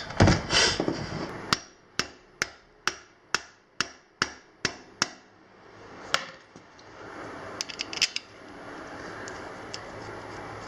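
A run of about nine sharp knocks, roughly two a second, then a few scattered clicks over a faint steady hiss.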